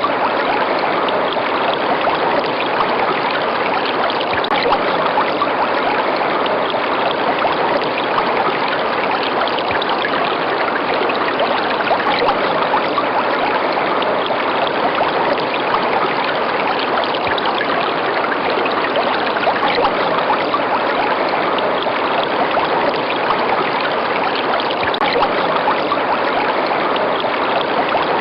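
River water running steadily, an even, continuous rush.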